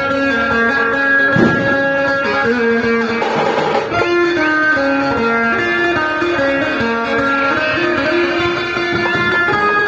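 Loud dhumal band music over an amplified sound system: a plucked-string lead plays a melody that steps from note to note, with one sharp hit about a second and a half in.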